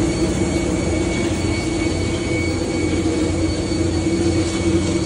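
Steady jet aircraft noise on the apron: a constant low drone with a thin, high whine held at one pitch.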